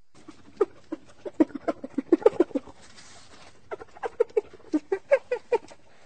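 Spotted hyena giggling: two quick runs of short, pitched, laugh-like calls, each run lasting about two seconds, with a short pause in the middle.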